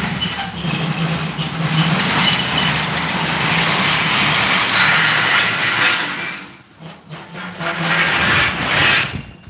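A motor running loudly and steadily with a low hum, dropping away about six and a half seconds in and starting again a second later.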